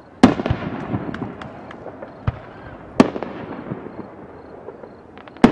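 Aerial fireworks shells bursting: three loud booms about two and a half seconds apart, each followed by a spatter of smaller pops and crackles and a rolling echo.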